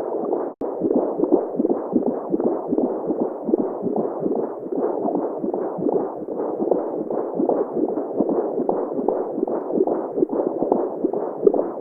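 Womb-sound white noise: a muffled, low whooshing rush with a steady rhythmic heartbeat pulse running through it. There is one brief dropout about half a second in, like a loop restarting.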